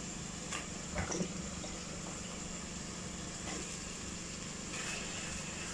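Pot of sauce with bottle gourd pieces simmering on a gas stove: a steady hiss over a low hum, with a few light knocks in the first second or so.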